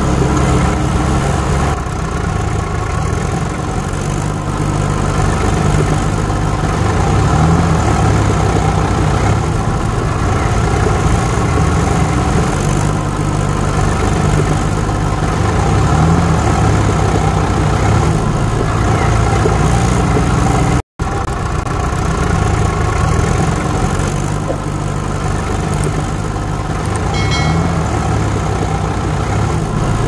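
A vehicle engine idling steadily with a low, even rumble. It cuts out for a split second about two-thirds of the way in, then carries on unchanged.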